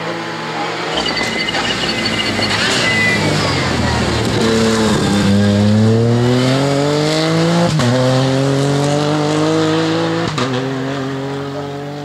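Ford Fiesta Rally4's turbocharged three-cylinder engine approaching and braking for a corner, with a thin high whine as it nears. The revs drop, then it accelerates hard away with two sharp upshifts, the pitch climbing after each.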